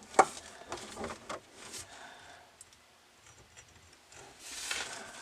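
A sharp click, then a few lighter knocks and a brief rustle near the end: the faucet's sprayer hose and its fittings being handled and pushed together under the sink.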